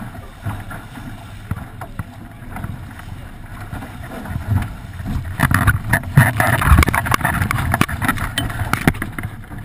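Wind buffeting the camera microphone and water rushing and splashing along a small sailboat's hull as it sails heeled over through chop. From about five seconds in it grows louder, with hissing spray and sharp slaps against the hull.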